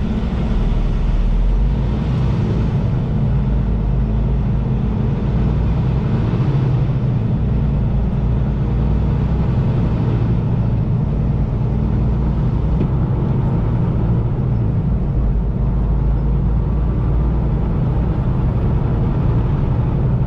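Semi-truck's diesel engine running steadily as the truck pulls away, its low engine note shifting up and down in steps.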